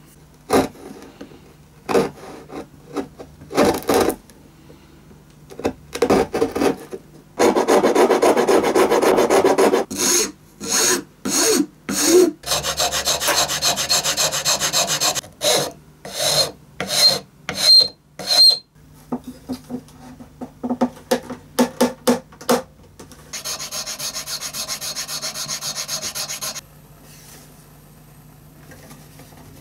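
A hand file rasping on the wooden neck joint of a violin, taking wood off so the neck sits lower and points to the centre of the body. It comes in three long runs of quick strokes, with single short strokes and taps between them, a few with a thin squeak, and it goes quieter near the end.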